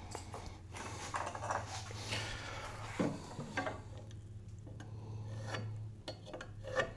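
Pencil scratching a line across an oak board against a square, with a few sharp clicks and knocks as the square and board are handled.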